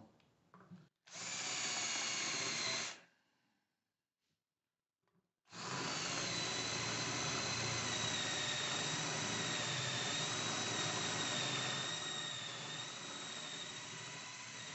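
Cordless drill boring into a stuck screw in the side cover of a Bafang geared hub motor, with a steady high whine. It runs briefly for about two seconds, stops, then starts again a few seconds later and keeps running, easing off slightly near the end.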